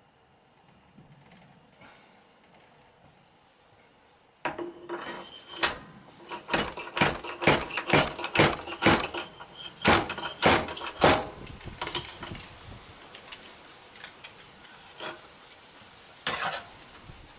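Metal parts clinking and clattering as they are handled and set down, a quick run of about a dozen sharp, ringing clinks starting a few seconds in, then two more near the end.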